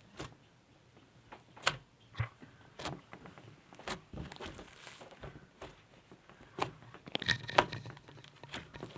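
Slime being squeezed and worked by hand, giving irregular sharp clicks and crackles that come thicker near the end.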